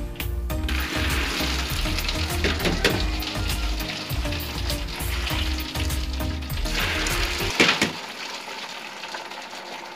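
Boiled sorghum grain and hot water scooped from a steaming pot with a plastic dipper and poured into a plastic colander, with water splashing and draining through the grain to a sizzling hiss and small knocks of the dipper. A louder clatter comes about three-quarters of the way in, and after it the sound is quieter.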